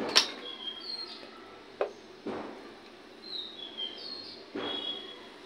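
Small birds chirping in short, high notes, with a sharp knock right at the start and a few softer knocks and rustles from handling the pan and a plastic container.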